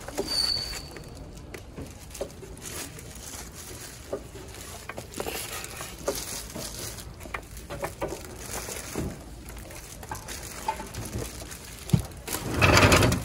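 Food being handled by plastic-gloved hands: scattered soft taps, small clicks and rustles as japchae and vegetables are piled into a plastic tray beside steel food pans. A louder burst of noise lasting about a second comes near the end.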